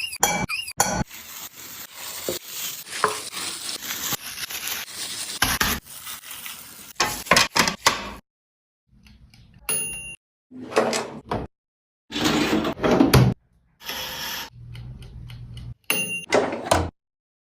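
Kitchen cooking sounds: pans and utensils clattering and scraping, in short clips that stop abruptly one after another.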